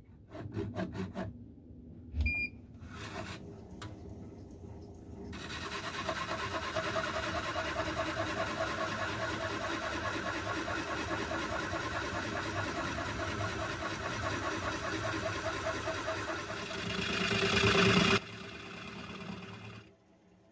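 Wood lathe switched on with a short beep, its motor whining as it spins up, then a turning tool cutting away the base of a spinning wooden bowl: a steady rough shaving noise that grows louder near the end and cuts off suddenly.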